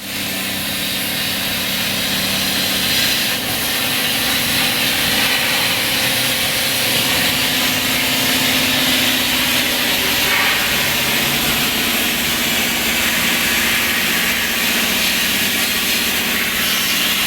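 Plasma cutter torch on a CNC table cutting steel: a steady, loud hiss with a low hum beneath it.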